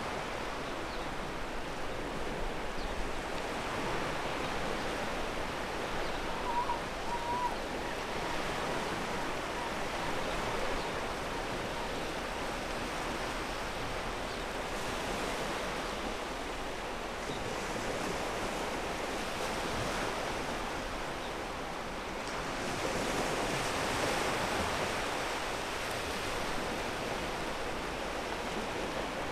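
Ocean surf washing onto a pebble beach: a continuous rush of water that swells and eases every few seconds as waves break and draw back.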